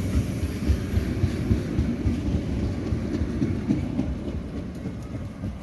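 A train passing close by, its wheels rumbling and clattering over the rails, easing off slightly near the end.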